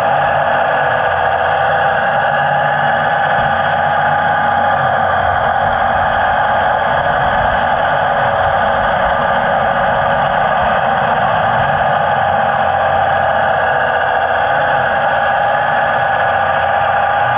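Steady running of radio-controlled model construction vehicles: a continuous, even motor whir with no distinct knocks or changes.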